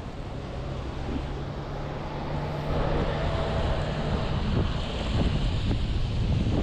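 Steady low rumble under a noise haze with wind buffeting the microphone, growing louder about three seconds in.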